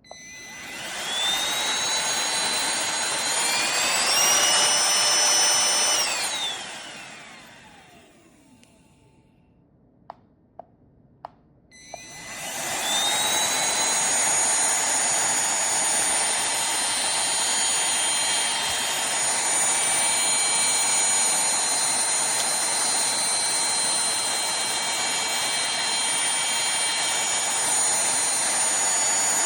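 Cordless handheld vacuum's motor whining as it spins up, climbing in pitch about three seconds in, then winding down about six seconds in. After a few short clicks it starts again about twelve seconds in and runs steadily at a high whine.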